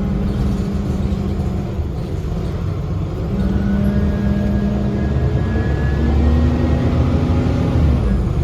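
Cummins ISL diesel engine and drivetrain of a 2010 Gillig BRT transit bus running under way, with a strong droning tone that drops away about two seconds in, comes back a second later and steps up in pitch near the end. A fainter high whine rides over it for a couple of seconds in the middle.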